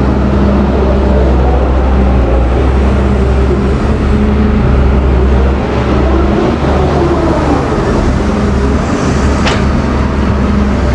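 Doosan wheeled excavator's diesel engine running steadily under load while digging, with a hydraulic whine that rises and falls as the boom and bucket move. A short sharp clank near the end.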